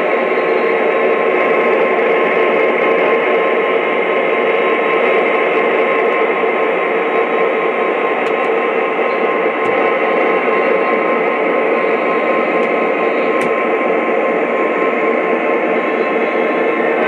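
Lionel O-gauge model train running past: a steady, even rushing noise from the locomotive's onboard diesel engine sound system, heard through its small speaker, together with the wheels rolling on the three-rail track.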